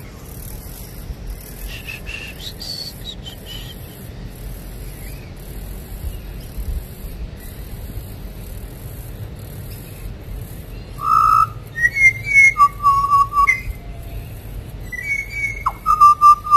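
Steady background noise, then from about eleven seconds in a loud melody of clear, whistle-like notes.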